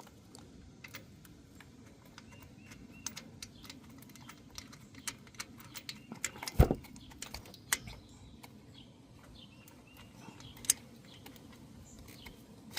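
Scattered light metallic clicks and taps while a starter mounting bolt is worked by hand into its threads, with one louder knock about six and a half seconds in.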